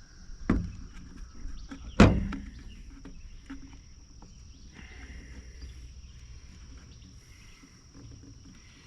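Two sharp knocks about a second and a half apart, the second the louder, then faint fiddling and handling noises as a new fuel line is worked onto a Husqvarna string trimmer's fuel fitting.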